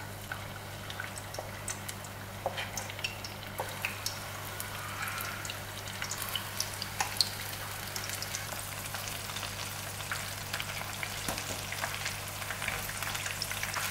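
Batter-coated chicken pieces deep-frying in hot oil: a steady sizzle with many small crackles and pops.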